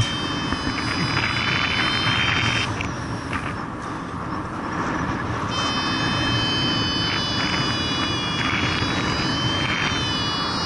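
A paraglider's audio altimeter sounding a steady high electronic tone over heavy wind rush on the microphone. The tone stops a little under three seconds in and comes back about halfway through.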